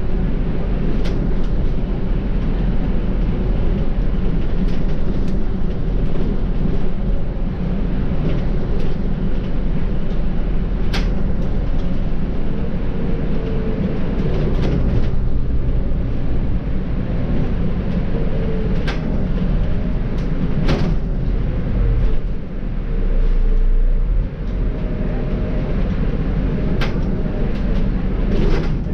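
Volvo B7R bus with a Volgren Optimus body driving along, its diesel engine rumbling steadily through the ZF EcoLife automatic gearbox. Its pitch drifts a little now and then, and a few sharp clicks or rattles come at scattered moments.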